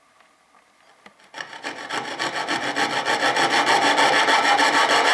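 Coping saw cutting waste from the corner of a wooden board with quick, even strokes, about six a second. It starts a little over a second in and grows louder.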